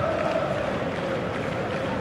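Football stadium crowd: many voices together in one sustained roar that sinks slightly in pitch and slowly eases off.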